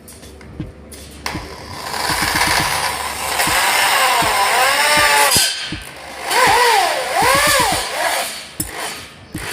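Handheld power drill driving screws into a metal cable tray, running in bursts, its motor pitch rising and falling as the trigger is squeezed and eased, twice near the middle.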